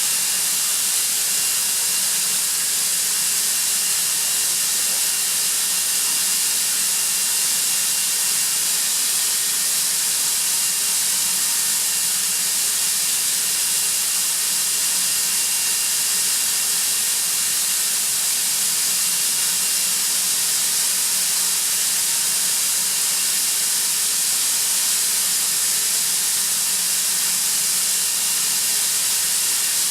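Atlas Copco ZT132FF oil-free rotary screw air compressor running: a steady, unchanging high hiss with a faint whine underneath.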